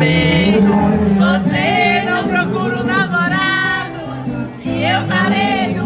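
A song playing: a singing voice with wavering, held notes over instrumental backing.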